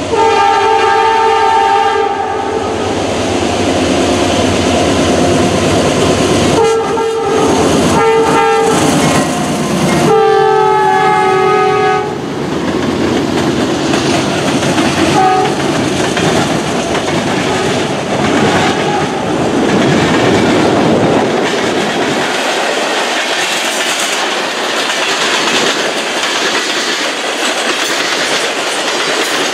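A locomotive's multi-note air horn blown four times, long, short, short and long, as a train approaches. The train then passes close by with a steady clatter of wheels on the rails, the deep rumble fading out near the end.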